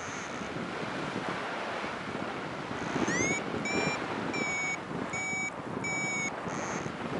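Wind rushing over the microphone with a flight variometer beeping. About three seconds in, one beep glides upward, then a run of short, even-pitched beeps follows at roughly 1.5 a second: the vario's signal of rising air.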